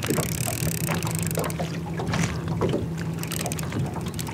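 Small boat's motor humming steadily, with water splashing and lapping against the hull while the boat is being positioned.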